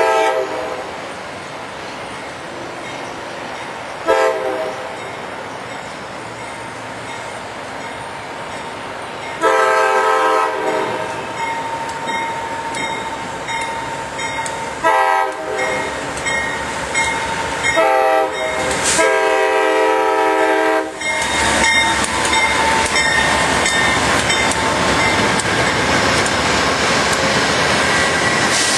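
Amtrak GE Genesis diesel locomotives sounding the air horn for a grade crossing: a couple of short toots, then long and short blasts ending in a long blast about 21 s in. The train then runs past close by, wheels clattering on the rail with a thin wheel squeal.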